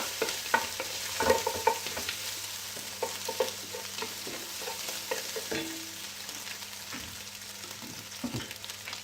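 Eggs, garlic and carrots sizzling in a hot stainless steel pan while a cooking utensil stirs and chops at them, breaking the eggs into small pieces. There are frequent short taps and scrapes against the pan, busier in the first few seconds.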